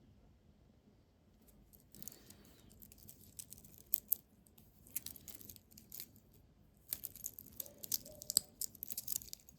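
Faint handling noises of a small watch being worked by hand: scattered light clicks and rustles from about two seconds in, coming thick and fast over the last few seconds.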